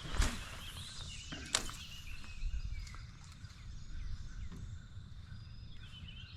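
Birds chirping over a low rumble of wind, with two sharp clicks, one at the start and one about a second and a half in.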